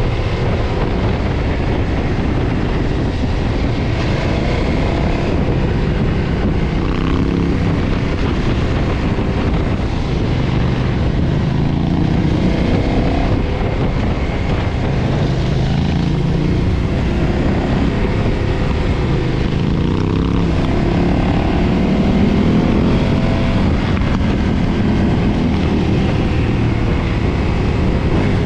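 2013 KTM 990's V-twin engine through its stock exhaust, under way on the road. Its pitch rises and falls again and again as the throttle is opened and closed through corners, over steady wind rush.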